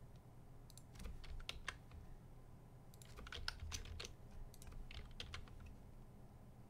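Quiet computer keyboard keystrokes: a few taps about a second in, then a quicker run of keys from about three to five and a half seconds in.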